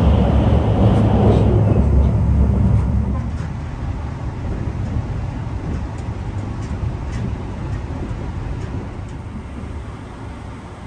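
INAHO limited express train running, heard from inside the carriage. A loud low rumble eases about three seconds in to a quieter, steady running noise with a few faint light clicks.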